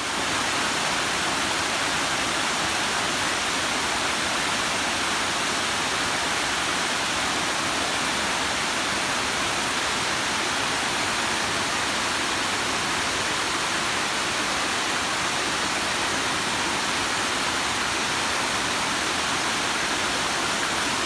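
Waterfall and stream water rushing: a loud, steady, even noise that comes in abruptly at the start and holds without change.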